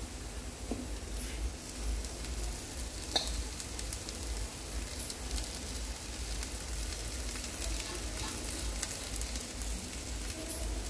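Onion, garlic and green chilli frying in a small iron pan, sizzling steadily, while boiled cassia tora leaves are tipped in and stirred through. There is one light click about three seconds in.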